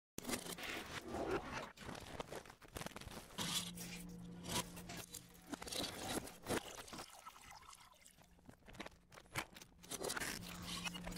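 Faint, irregular crackling and scraping noises with scattered sharp clicks, over a low hum that comes and goes.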